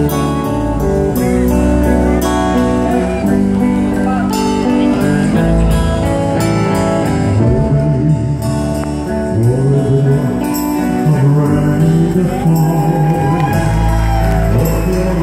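Live band playing amplified music on electric guitars over a drum kit, with a saxophone in the band.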